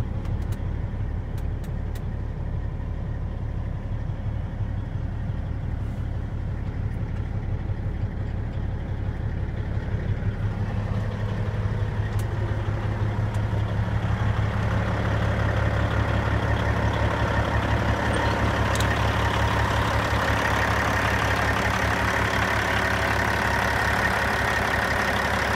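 Caterpillar C-15 straight-six diesel in a Peterbilt 379 running at idle, then rising in speed and loudness about halfway through and holding steady at the higher speed.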